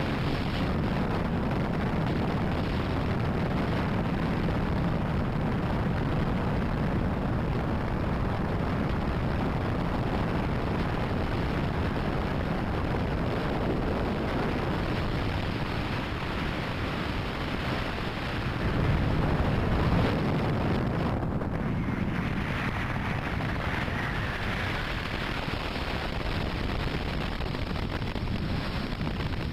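In-flight noise of an open-cockpit ultralight trike: the engine's steady drone mixed with wind rushing over the microphone, a continuous noisy rumble. It swells briefly about two-thirds of the way through.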